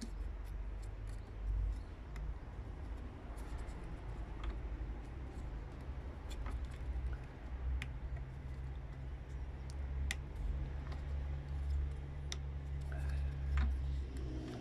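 Faint scattered clicks and scratches of fingers handling fine copper wire and pressing the windings on a transformer bobbin held in a coil winder, over a steady low hum.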